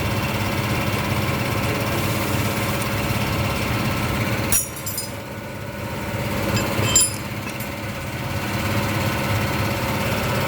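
A steady engine hum, with sharp metallic clicks about four and a half and about seven seconds in as a snap ring is worked off a truck transmission's input shaft. The hum dips briefly at the first click and builds back.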